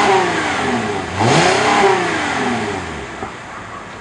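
2009 Cadillac CTS 3.6-litre V6 exhaust while the engine is revved in place: the tail of one rev falling away, then one more blip about a second in that rises and drops back toward idle.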